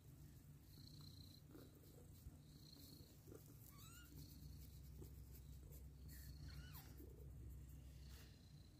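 Mother cat purring softly, a steady low rumble that fades near the end. A few faint high squeaks from nursing kittens come around the middle.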